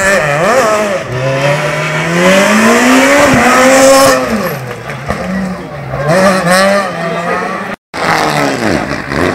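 Rally car engine revving hard as the car passes, its pitch climbing for about three seconds, then dropping and rising again several times as it drives away. The sound cuts out for a split second near the end.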